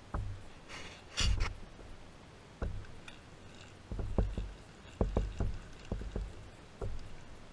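A string of irregular low knocks and thumps on a kayak, about ten in all, with a short splashing rush about a second in.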